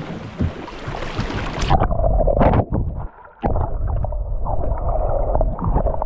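Wind buffeting the microphone and river water rushing past the hull of a wooden canoe running upriver through shallow rapids, with a low rumble underneath. The sound dips out briefly about three seconds in.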